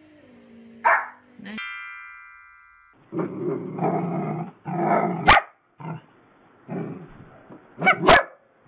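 A drawn-out whining call ends about a second and a half in. A short ringing chime follows, then long-haired dachshunds barking and growling in several loud bursts, with sharp yaps near the end.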